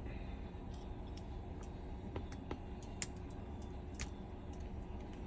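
Scattered light clicks and ticks of small repair tools and parts on an iPhone during disassembly, irregular, with the sharpest clicks about three and four seconds in, over a low steady hum.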